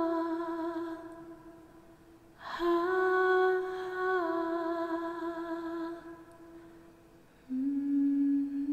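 A woman humming a slow, solemn melody in long held notes that step down and fade. She takes a breath about two and a half seconds in before the next phrase, and a lower note begins near the end.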